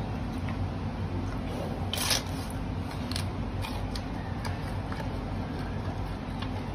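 Giant panda crunching and chewing carrots: scattered short crunches and clicks, the loudest about two seconds in, over a steady low hum.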